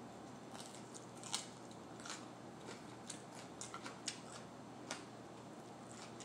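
Close-up crunchy chewing of a raw mini sweet pepper topped with cream cheese and everything bagel seasoning: irregular crisp crunches, the sharpest a little over a second in.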